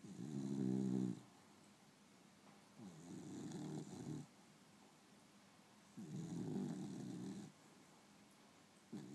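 Beagle snoring in her sleep: a pitched snore about every three seconds, each lasting a second or so.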